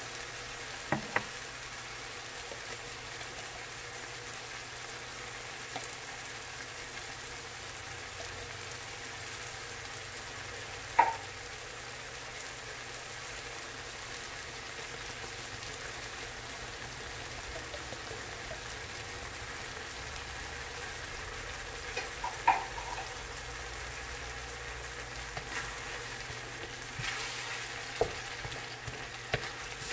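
A pan of sautéed garlic, onions and tomatoes sizzling steadily as it cooks. A few short sharp clinks come now and then, the loudest about eleven seconds in.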